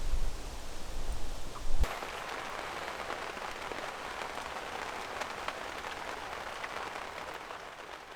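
Low wind rumble on the microphone, then, from just under two seconds in, steady rain falling on a surface: an even hiss with many small drop ticks.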